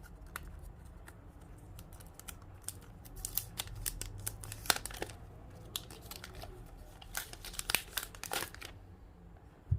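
Crinkling plastic and small clicks from handling the Echo Dot's power adapter and cable, in two spells of rustling, the second ending about a second before the end, then a single knock at the very end.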